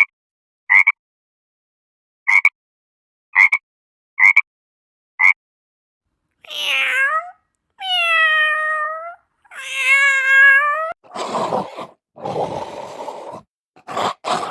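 Six short chirps spaced about a second apart, then a domestic cat meowing three times, each meow a drawn-out call of about a second. About eleven seconds in, rough, noisy animal sounds follow.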